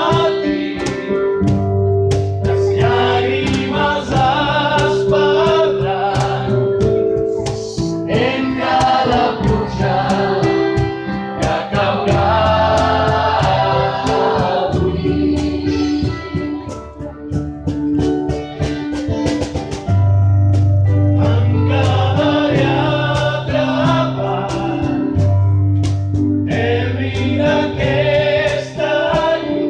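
A vocal group singing a pop ballad live in harmony, over instrumental accompaniment with sustained bass notes.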